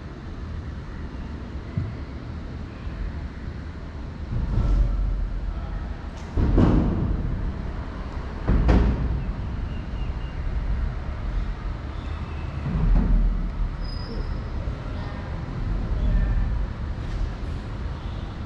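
Road traffic crossing the concrete bridge overhead: a constant low rumble, with about five heavier vehicles swelling up and fading away as they pass.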